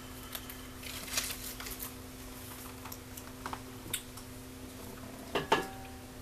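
Small objects and paper being handled on a desk: scattered light clicks, taps and rustles over a steady low hum, with a brief louder sound about five and a half seconds in.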